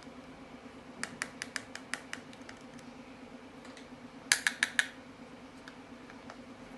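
A run of light sharp clicks, then four louder clicks in quick succession, over a steady low hum.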